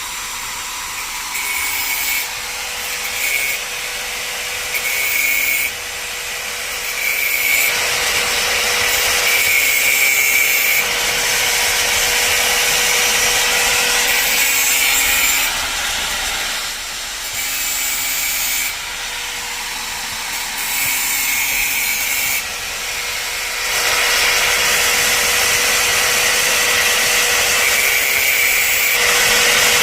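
Angle grinder running with a steady whine while its disc grinds the teeth of a wood saw to sharpen them. A harsh grinding rasp swells and drops every few seconds as the disc is worked along the teeth.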